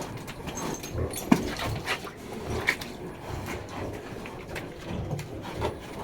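Pietrain pigs grunting in short, low, repeated grunts, with one brief squeal about a second and a half in, over scattered small knocks and rustling.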